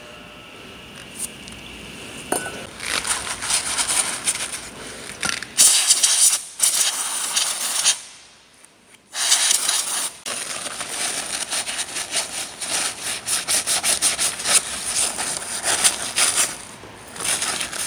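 Aerosol carburettor and choke cleaner hissing in short sprays onto a carbon-fouled EGR valve, with paper towel rubbing and scrubbing the valve body in between. The two loudest sprays come about a third of the way in and again about half way.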